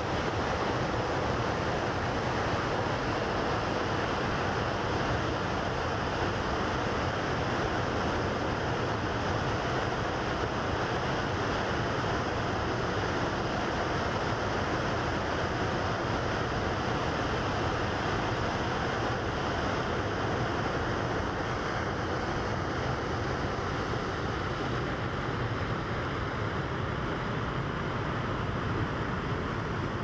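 Muddy high water pouring over a low concrete dam into whitewater, a steady rushing of water.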